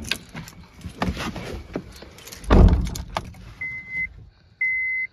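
Handling knocks and rustling inside a car, with a heavy thump about two and a half seconds in. Then the car's warning chime beeps twice, a steady high tone about once a second, with the dashboard warning lights on.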